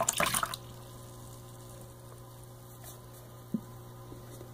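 Glue-and-water mixture poured from a squeeze bottle into a plastic cup: a short splash in the first half second. After that, only a steady low electrical hum, with a faint tap about three and a half seconds in.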